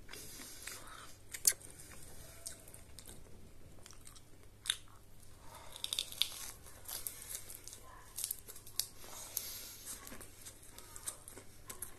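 A person chewing and crunching lettuce leaves picked off the plate by hand, with scattered sharp clicks and crackles; the sharpest click comes about a second and a half in.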